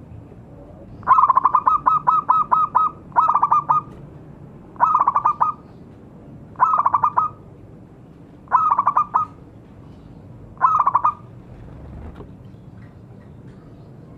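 Zebra dove calling: six phrases of rapid staccato coos, about two seconds apart, the first phrase the longest.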